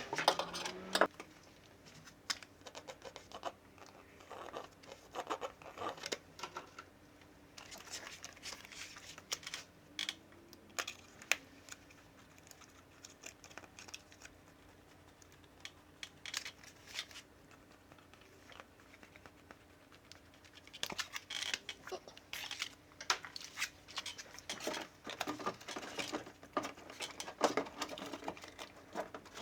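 Hands-on work with tools and sheet material on a car door: scattered clicks, scratches and crinkling in busy spells, with a quieter stretch in the middle and a faint steady hum underneath.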